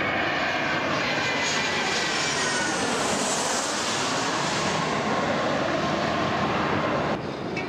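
Twin-engine jet airliner on final approach passing low overhead: loud rushing jet noise with a falling whine as it goes over. The sound drops away abruptly near the end.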